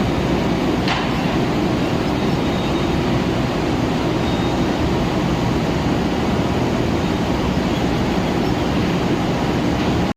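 Machine tool running steadily while machining metal, a constant even noise with most of its weight low down.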